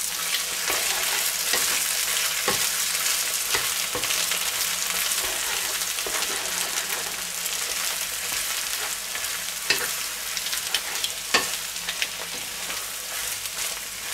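Diced bread dumplings, bacon, onion and egg sizzling in a frying pan while a wooden spatula stirs and scrapes through them, with a few sharp knocks of the spatula against the pan.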